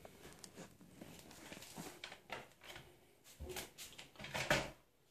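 Faint rustling and soft footsteps on a tile floor, then a few brief taps about three and a half and four and a half seconds in as a hand presses a glass bathroom scale to switch it on.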